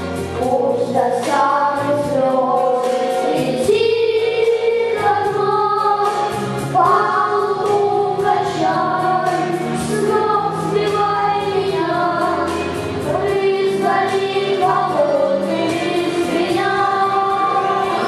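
Children's vocal ensemble singing together into microphones over an instrumental accompaniment with a steady beat.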